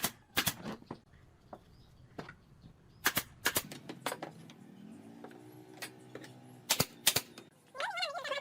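Sharp knocks on wood in pairs, a few seconds apart, typical of hammer blows while building with pallet wood. A wavering pitched call starts near the end.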